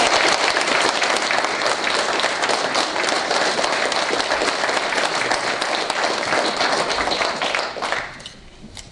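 Audience applauding, a dense patter of many hand claps that dies away about eight seconds in.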